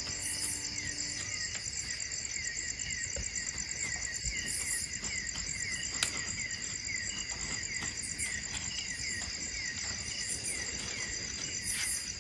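Insects and crickets singing: a steady high-pitched chorus with quicker repeating chirps beneath it. A single sharp click sounds about halfway through.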